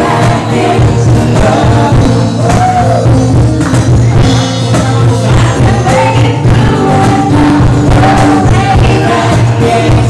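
Live male-and-female vocal duet of a pop ballad, sung into microphones and amplified, backed by guitar.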